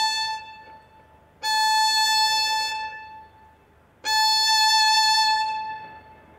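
Violin playing separate bowed strokes on one high note: the end of one stroke fades, then two more strokes start about a second and a half in and about four seconds in, each dying away into a short near-quiet gap. These are bow changes where the arm lets go before the bow turns.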